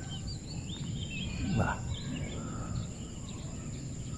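Outdoor ambience: birds chirping, and a steady high-pitched drone of insects, over a low rumble of wind on the microphone. A brief louder sound about one and a half seconds in.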